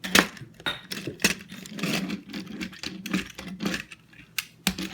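Irregular clicks, rattles and rustles of a plastic toy train and its cardboard and plastic packaging being handled and pulled apart.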